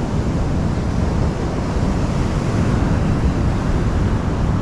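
Steady wind noise on the microphone over the rush of surf.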